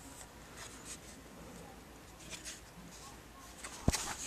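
A plastic paintball hopper handled and turned over: light rustling and scraping, then a sharp plastic click or knock near the end.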